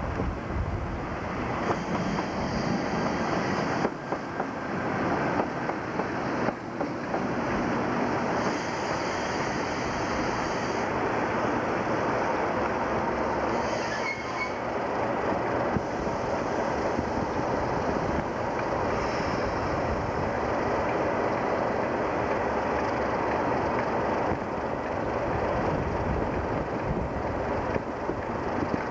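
A pair of British Rail Class 37 diesel locomotives, with English Electric V12 engines, running past while hauling a binliner train of waste containers: a steady, continuous sound of engines and rolling wheels.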